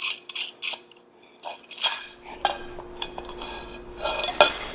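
Small metal clicks and clinks of a nut and bolt being run along a metal garage door opener rail and tightened by hand: a quick run of clicks at first, scattered clinks in the middle, and a short metallic scrape near the end.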